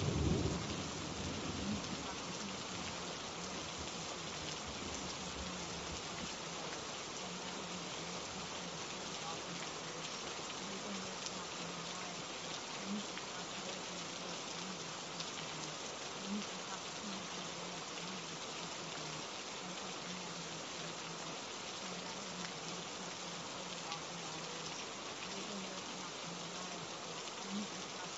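Steady rain falling, an even hiss of drops. A brief low rumble at the very start is the loudest moment, and faint short low hums come and go under the rain.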